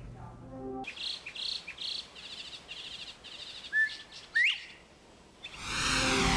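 Northern bobwhite whistling its rising 'bob-white' call once, about four seconds in, over a run of high chirps about three a second. Near the end a whooshing transition effect sweeps in.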